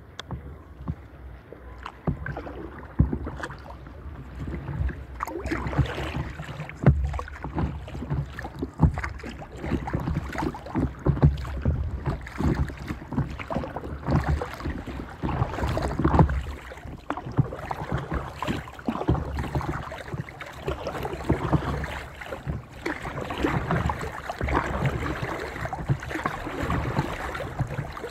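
Water lapping and splashing against the bow of an inflatable stand-up paddleboard as it moves over small waves, with irregular splashes, under a steady rumble of wind on the microphone.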